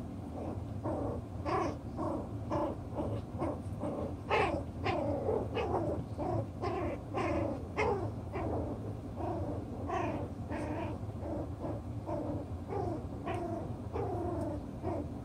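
Chocolate Toy Poodle puppies, six weeks old, making short whining calls in play, each falling in pitch, about two a second.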